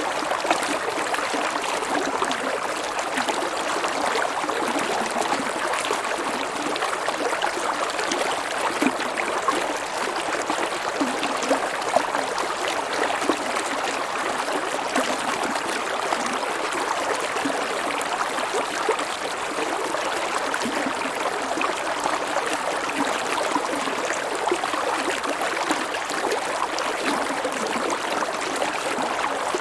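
A river stream flowing steadily over a low waterfall: a continuous rush of water with small splashing and gurgling flecks.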